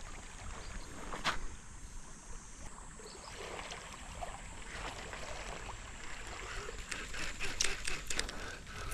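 Small waves lapping on a lakeshore beach, with a few sharp clicks, several of them close together near the end.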